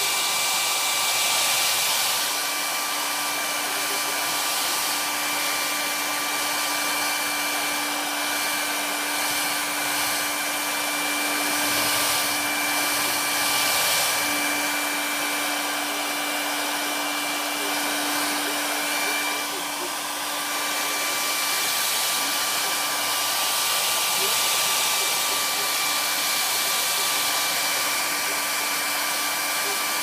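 Handheld hair dryer running steadily: a constant rush of air with a steady whine from its motor.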